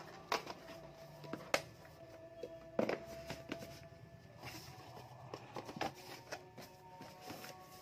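Handling noise from a smartphone and its cardboard box being moved by hand: a scatter of light clicks and taps.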